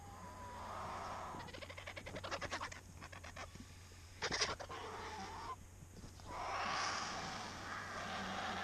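Griffon vultures squabbling at a carcass: a rapid rattling chatter, a sharp loud call about halfway through, then a long harsh hiss near the end.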